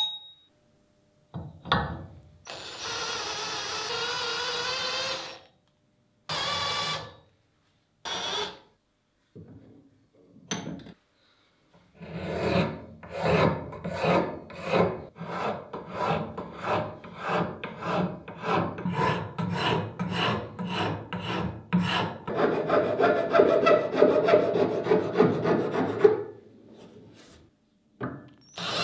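Hand file rasping on metal: a few separate scrapes, then steady back-and-forth strokes about two a second, running together into denser filing near the end.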